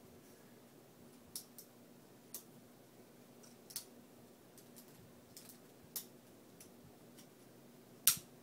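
Irregular sharp clicks from a Benchmade Mini Griptilian folding knife as it is handled, about a dozen of them, the loudest near the end.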